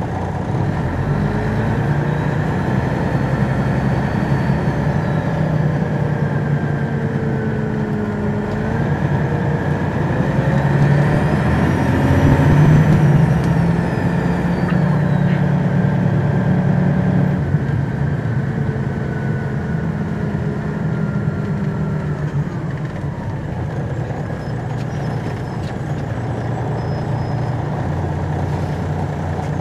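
Detroit Diesel Series 60 diesel engine of a 2002 MCI D4000 bus, heard from inside at the rear, pulling away from idle and accelerating. Its pitch climbs and steps several times as the automatic transmission shifts, with a whine gliding up and down over it. It is loudest about halfway through, then eases off and falls back toward idle near the end.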